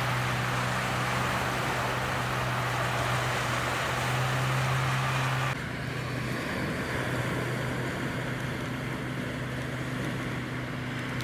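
A car running, with a steady low engine hum under a broad rushing noise. About five and a half seconds in the rushing noise drops off abruptly, and the hum carries on.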